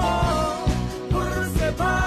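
Background music: a song with a sung melody over a steady beat.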